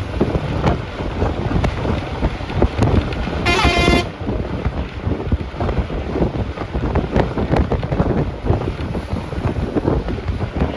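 Moving bus heard from inside: steady engine and road rumble with rattling, and wind buffeting the microphone. A short horn toot sounds about three and a half seconds in.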